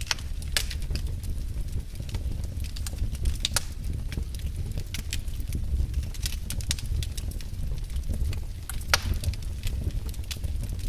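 Wood fire burning in a fireplace: a steady low rumble of the flames with sharp, irregular crackles and pops of the burning logs.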